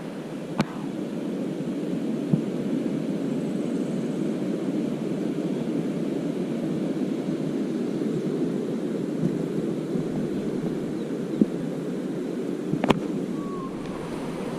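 Steady rushing of a stream of flowing water, with a few sharp clicks scattered through it.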